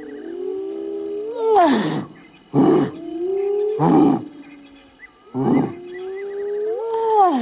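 A man imitating a lion's roar through cupped hands: about three drawn-out moaning calls, each falling off at the end, broken by short harsh breathy grunts.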